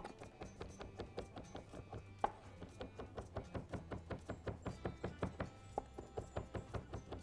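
Chef's knife mincing fresh mint on a wooden cutting board: quick, even chops of the blade against the board, about five a second.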